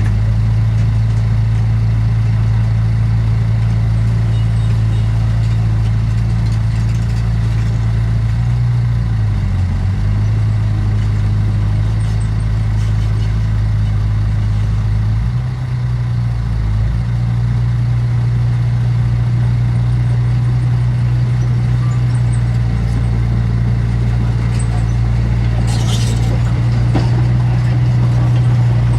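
Heavy diesel engine of a bulldozer or dump truck running steadily up close, its pitch dipping briefly twice as the revs change. A brief hissing burst sounds near the end.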